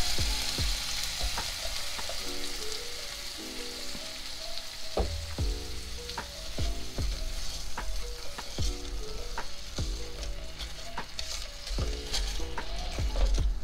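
Orange juice and brown sugar sizzling in a hot skillet while a spoon stirs, clicking and scraping against the pan now and then. Quiet background music with a steady low beat runs underneath.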